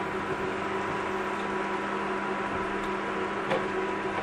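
Button mushrooms frying in a nonstick pan with a steady hiss, over a steady electrical hum from a running kitchen appliance. A light tick or tap sounds about three and a half seconds in.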